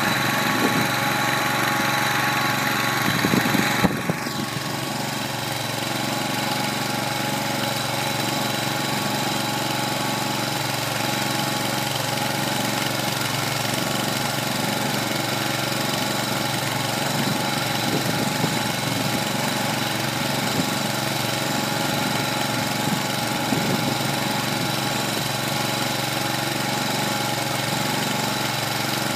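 Kohler 25 hp gas engine running steadily, driving a small 25-cubic-foot feed mixer as it turns a load of hay. A higher hiss over the engine drops away about four seconds in.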